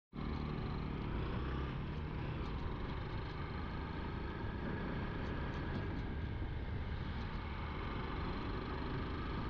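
Motorcycle engine running with a steady low rumble, with a few faint ticks over it.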